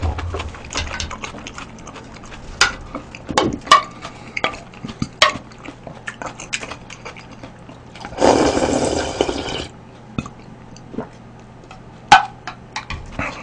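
A spoon clicking and scraping against a bowl as noodle soup is eaten, with one loud slurp of about a second and a half a little past the middle.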